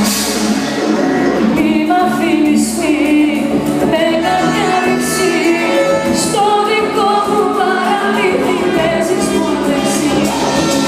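Live music from a band with a woman singing lead, her voice sliding between notes in ornamented phrases that come in about two seconds in.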